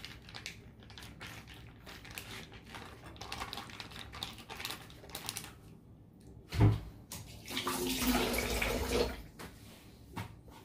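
Plastic zip-top bag crinkling as it is pressed flat on a wooden cutting board. About six and a half seconds in there is a sharp knock, then a kitchen tap runs into the sink for about a second and a half.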